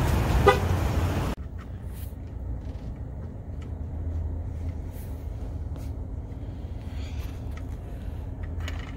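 Loud, even background noise that cuts off abruptly a little over a second in. After that comes a low, steady rumble like a vehicle cabin, with scattered clicks and crinkles of plastic toy packaging being handled.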